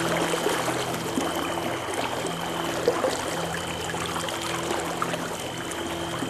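Ambient drone music: low held tones and a thin high tone swelling in and out, over a crackling, trickling water-like texture.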